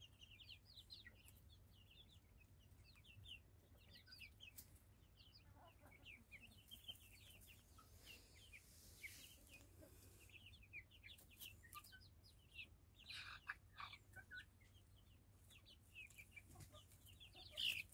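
Faint, frequent short high peeps and soft clucks from a small flock of young local chickens.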